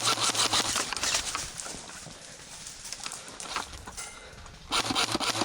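Rapid clattering clicks in two spells, one at the start and one near the end, with a quieter stretch between: the footfalls and shots of an airsoft skirmish.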